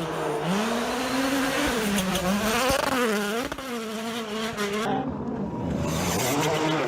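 Rally car engine revving hard under load, its pitch climbing, holding and dropping several times as it shifts through the gears, with a sharp dip about three and a half seconds in. About five seconds in the sound cuts abruptly to another rally car accelerating.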